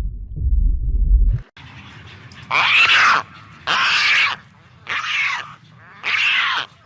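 A low rumble that cuts off about a second and a half in, then an animal calling four times, about one call a second, each call loud and about half a second long.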